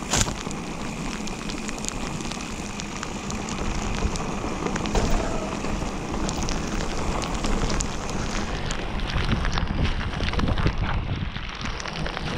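Mountain bike rolling over a wet dirt and rocky trail in the rain: a steady crackling wash of tyre and rain noise with many small clicks and knocks, and one sharp knock right at the start.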